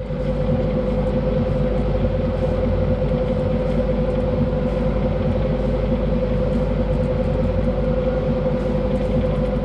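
Sailboat's auxiliary engine running steadily while motoring in a calm, a loud, even drone with a constant hum.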